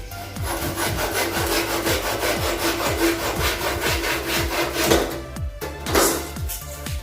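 Hand saw cutting wood in quick rhythmic strokes, under background electronic music with a steady beat.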